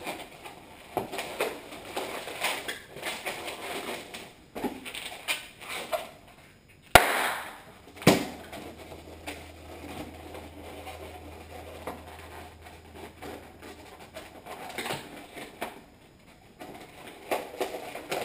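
Latex twisting balloon being stretched and twisted by hand, giving a run of short rubbing squeaks and crackles. A sharp loud crack about seven seconds in, followed by a second one a second later, is the loudest thing.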